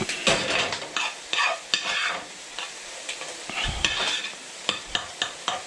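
A spoon stirring scrambled eggs in a frying pan, with repeated quick scrapes and taps against the pan over steady sizzling as the eggs cook.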